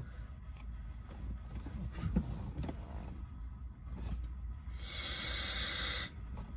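A person taking a big vape hit: a long airy hiss of breath and airflow lasting just over a second near the end, which stops abruptly. Faint rustling and a low steady rumble lie underneath.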